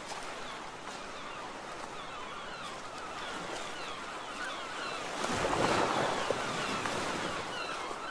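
Sea surf washing onto a beach, with a louder wave breaking about five seconds in. Many short, high, falling chirps run over the surf throughout.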